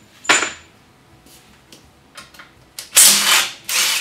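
Cordless impact wrench run in short bursts, loosening the bolts that hold a 700R4 transmission to a Buick straight-eight's adapter kit: one brief burst a moment in, then two longer, louder bursts near the end.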